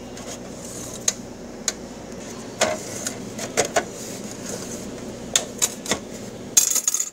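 Hard plastic housing parts of a Danfoss VLT 2800 drive clicking and knocking as they are handled and fitted back together by hand: scattered sharp ticks, several in quick succession near the end, over a steady low background noise.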